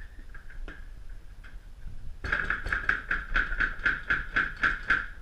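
Nylon zip tie being pulled tight, its ratchet clicking rapidly, about seven clicks a second, for about three seconds starting about two seconds in.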